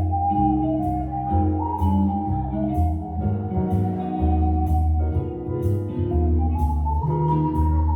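Live instrumental band music: a melody line over a steady bass line and light percussion.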